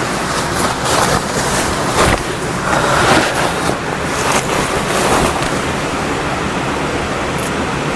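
Waterfall running, a steady rush of water, with a few short clicks over it.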